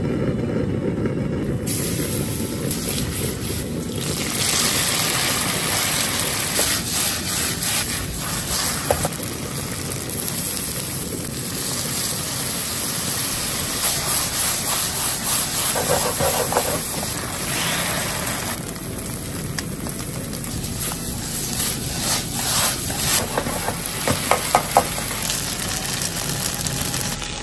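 Char kuey teow (flat rice noodles with prawns) sizzling hard in a hot wok as it is stir-fried, the sizzle starting about two seconds in. Short clattering strokes come now and then, thickest near the end.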